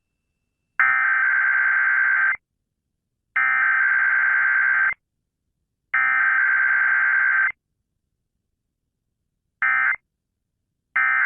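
Emergency Alert System SAME digital data bursts: three evenly spaced bursts of about a second and a half each, carrying the test's header code, then two short bursts of the end-of-message code.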